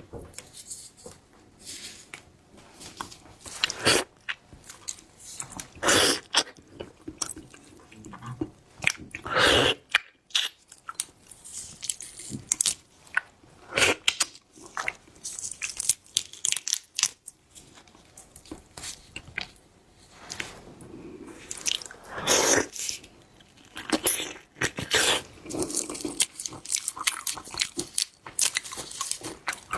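Close-miked eating of seafood: irregular crunchy bites and chewing, the loudest crunches about 4, 6, 9 and 22 seconds in.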